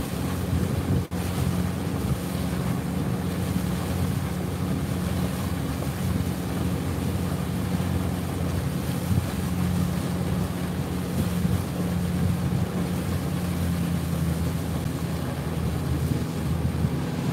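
Steady low hum of a boat's motor running at constant speed, with wind noise on the microphone and water noise over it. The sound cuts out for an instant about a second in.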